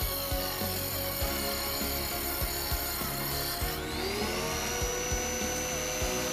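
Homemade mini table saw with an RS-775 DC motor running and cutting through a small piece of plywood, a whine with a harsh hiss. About four seconds in the cut finishes and the motor's pitch rises as it speeds up unloaded. Background music plays underneath.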